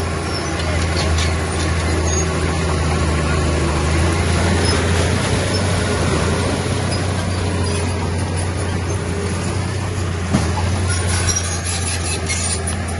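Heavy earthmoving machinery's diesel engine running steadily under load, with a sharp knock about ten seconds in and metallic clanks and squeaks near the end.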